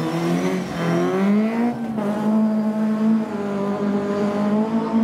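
BMW E30 rally car's engine revving hard as it powers out of a gravel corner and accelerates away. The engine note dips and climbs during the first two seconds, then holds fairly steady as the car pulls away.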